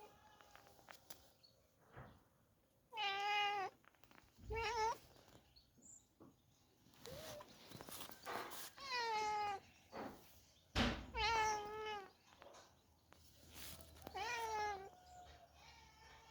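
A domestic cat meowing repeatedly: about six drawn-out meows with a wavering pitch, a second or two apart, and a dull thump just before one of the later meows.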